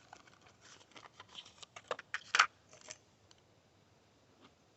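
Cartridges being pressed one by one into a pistol magazine: a quick, irregular series of faint metallic clicks over about three seconds, then it stops.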